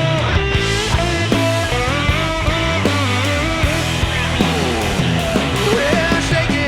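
Live blues-rock band playing an instrumental passage with no singing. An electric guitar plays a lead line full of string bends over bass guitar and drums.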